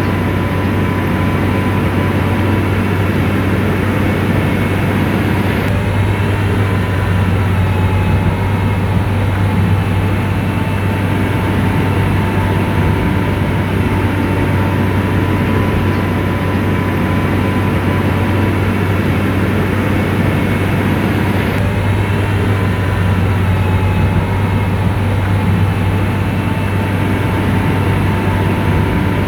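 SDLG motor grader's diesel engine running steadily with a deep drone.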